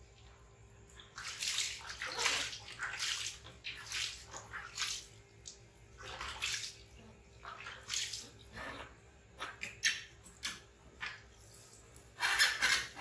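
Water splashing and sloshing in irregular bursts as a wet baby monkey is washed by hand on a tiled floor, starting about a second in.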